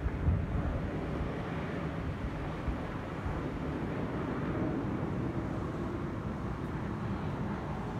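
Jet noise from an Airbus A320-216's CFM56 turbofan engines as the airliner flies over: a steady low rumble whose higher hiss thins out after the first few seconds. A single low thump sounds about a third of a second in.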